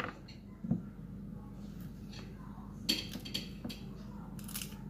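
A kitchen knife cutting and scraping a peeled cassava root over a cutting board: a soft knock early in, then several short scraping strokes.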